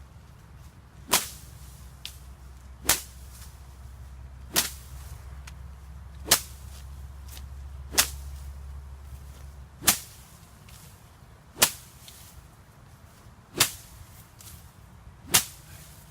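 A green sapling swung like a whip, slapping down tall grass with a sharp strike about every 1.8 seconds, nine strokes in all.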